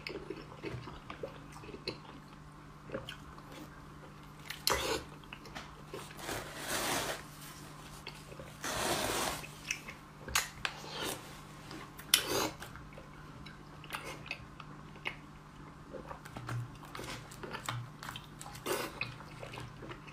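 Close-miked biting and chewing of a large slab of glazed, braised fatty pork belly. Wet mouth sounds and small clicks, with a few louder bites spread among quieter chewing.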